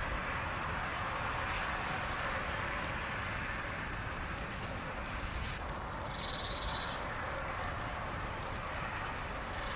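Steady hiss of outdoor ambience, with a short, rapid trill from a small bird about six seconds in.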